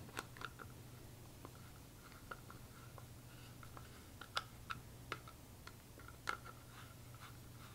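Faint, irregular small clicks and ticks of a Phillips screwdriver tightening screws through a Kydex holster, over a low steady hum.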